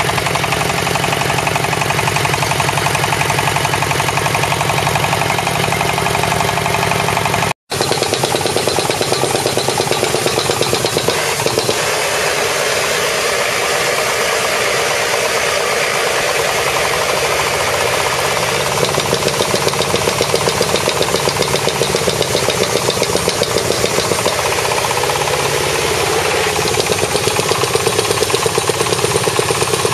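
Single-cylinder diesel engine of a hydraulic guardrail-post drilling machine running with a steady fast knock. After a brief break about eight seconds in, it keeps running while the machine drills into the ground.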